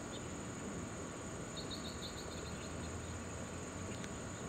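Steady low rumble of a Boeing 787-10 airliner flying high overhead, under a steady high-pitched insect buzz. About a second and a half in, a small bird gives a quick run of chirps, and there is a single click near the end.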